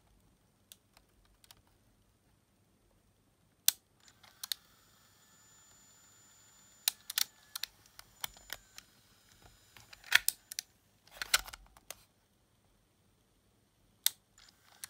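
Sharp mechanical clicks from a Sony WM-EX900 cassette Walkman's tape mechanism being handled and operated during a battery-powered test. For a few seconds in the middle, a faint steady whir with a thin whine is heard as the mechanism runs.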